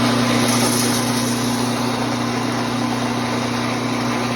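Coffee roaster running with a steady, even motor-and-fan hum.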